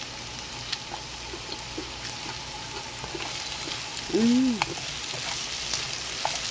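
Watermelon rind, onion and red chili stir-frying in oil in a pan, a steady sizzle with a few faint clicks. About four seconds in, a short hummed voice sound rises and falls in pitch.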